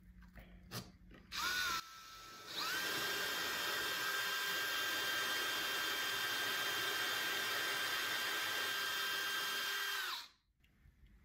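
Cordless drill with a diamond bit grinding a hole into a lava rock held under water. A brief spin-up about a second and a half in, then a steady whine for about seven and a half seconds that cuts off near the end.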